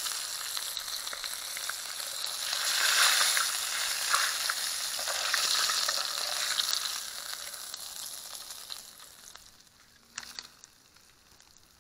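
A piece of fish frying in hot cooking oil, a dense sizzle and crackle that swells about a third of the way in and then dies away over the last few seconds. A short knock comes near the end.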